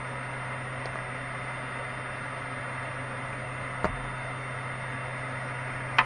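Steady hum and hiss of a 3D printer's cooling fans, with a faint click about four seconds in and a sharper click near the end as the small printed plastic keychain is handled.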